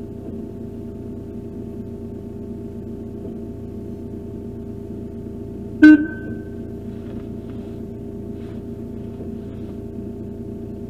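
JCB 535 telehandler's diesel engine running with a steady hum, and one sharp metallic clang about six seconds in that rings briefly.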